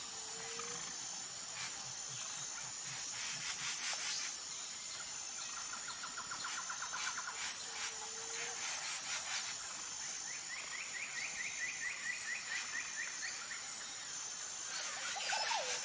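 Outdoor nature ambience: a steady high-pitched insect buzz, with bird calls over it, including rapid trills and a short low note heard twice.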